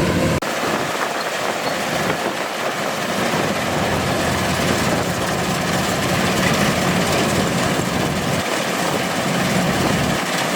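Kubota DC-105X rice combine harvester running, its diesel engine and threshing machinery making a steady, dense mechanical noise, with a brief break about half a second in.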